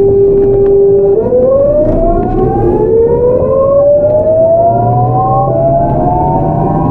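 GEC Alsthom GTO-VVVF traction inverter and motors of a Seoul Metro 8000-series train whining as it accelerates: a steady tone for about a second, then several tones rising together in pitch, over the low rumble of the running train.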